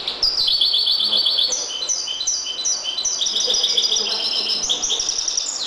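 European goldfinch singing a trained limpio-style song: fast, unbroken runs of high repeated notes and trills, stepping up and down in pitch.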